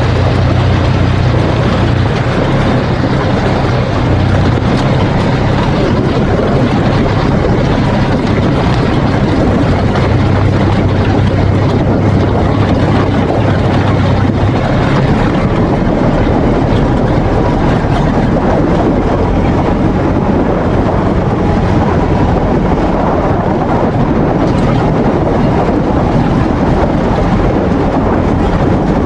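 Polaris RZR side-by-side running under way, its engine and a loud rushing noise steady throughout. The low engine hum stands out for the first half, then sinks into the rushing noise.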